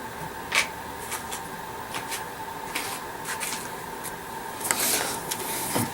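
Scattered light clicks and rustles of small items being handled, with a louder rustle about five seconds in, over a faint steady background hum.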